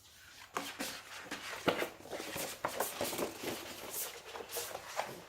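Posters and their packaging being handled, giving an irregular run of rustles and small clicks.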